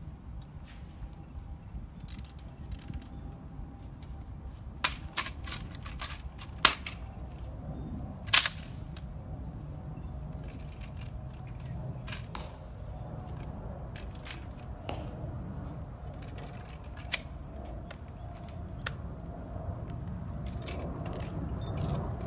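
Sharp metallic clicks and clacks of an M14 rifle being handled during a rifle inspection, coming in a quick cluster, then one at a time every few seconds, over a steady low rumble.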